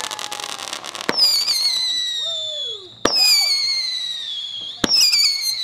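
Whistling fireworks: three sharp bangs, each followed by a shrill whistle that slides slowly down in pitch for about two seconds. A crackle from the previous shot is fading out at the start.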